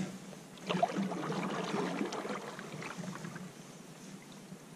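Canoe hull knocking into a floating log about a second in, then scraping and grinding against it amid water sounds that fade off; the log does not sink under the canoe.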